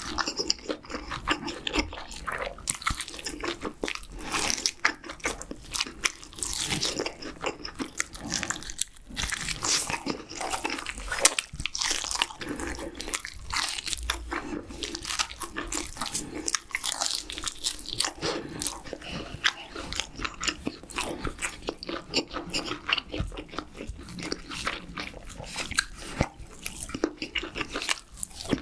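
Close-miked chewing and biting: a person gnawing meat off a grilled rib bone, with a dense run of wet, crackly mouth clicks and crunches. Another bite of food goes into the mouth near the end.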